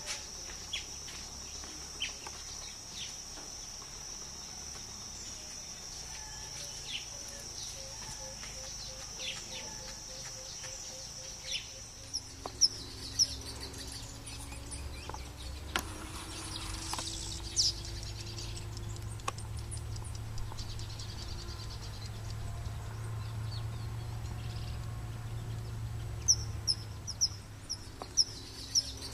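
Small birds giving short, high chirps in quick clusters, over a steady high insect drone that stops about twelve seconds in. A low hum runs underneath.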